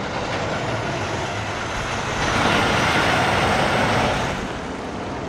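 Semi tractor-trailer driving past, its engine and tyre noise swelling to a peak about halfway through and then easing off.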